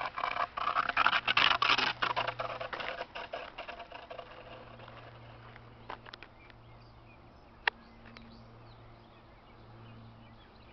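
Gravel crunching and scraping underfoot and under a dragged stick, loud and dense for the first three seconds, then fading. A few sharp clicks follow in a quieter stretch with a faint low hum.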